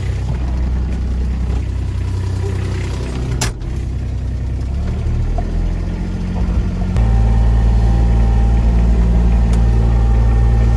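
A vehicle engine running steadily, with a sharp click about three and a half seconds in; about seven seconds in the engine note steps up and grows louder, as when it is revved or pulls away.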